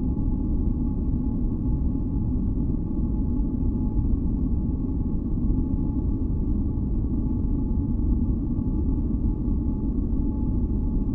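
Steady synthesized masking noise, deep and rumbling like brown noise, with faint high steady tones held over it. It stays even throughout, with no events or changes.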